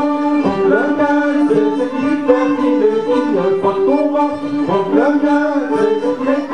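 Traditional folk dance tune with a fiddle leading, playing held melody notes that slide from one pitch to the next.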